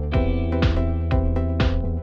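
Background electronic music with a steady beat: a kick drum about twice a second, a snare-like hit once a second, over sustained synth chords.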